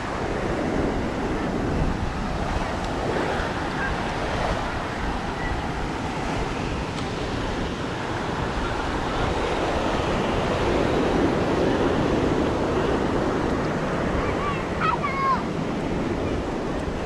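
Ocean surf breaking and washing up a sandy beach, swelling and easing, with wind buffeting the microphone.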